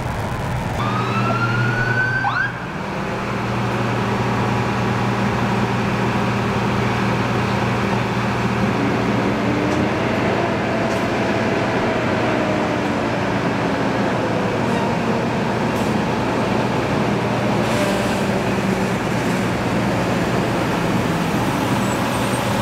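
Sirens of responding fire apparatus: a short rising siren whoop about a second in, then a fainter siren wailing slowly up and down, over a steady low engine hum.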